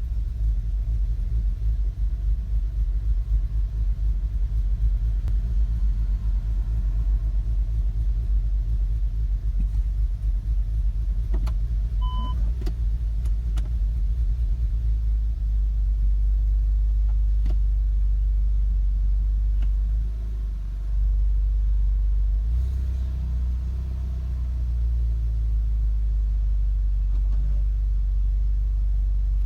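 2015 VW Golf R's turbocharged 2.0-litre four-cylinder idling rough, as if about to stall: an uneven, stumbling pulse for the first half that steadies later on. A short beep comes about twelve seconds in. The owner later traced the rough idle to carbon buildup, cured by carbon cleaning.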